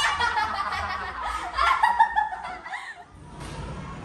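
Two girls laughing at someone, a string of "ha-ha-ha" laughs that stops about three seconds in, followed by quiet room tone.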